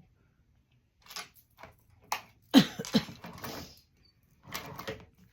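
Scattered clicks and knocks of a strap being handled and positioned at a sewing machine before top stitching, with the loudest pair of knocks about two and a half seconds in and a few more near the end. The machine is not yet stitching.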